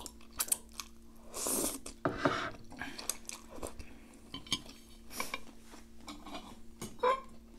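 Eating sounds: instant ramen noodles slurped and chewed, with chopsticks clicking against plates and the pan in many short clicks.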